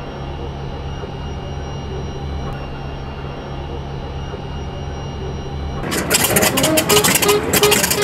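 B-25 Mitchell's Wright R-2600 radial engine being turned over by its starter, a steady low pulsing hum. About six seconds in it catches and fires with a sudden, much louder, ragged run.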